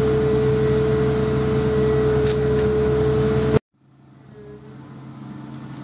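Volvo wheeled excavator's diesel engine running steadily under a constant high whine, cut off abruptly a little over halfway through; after a moment of silence a much fainter engine sound comes back in, slowly getting louder.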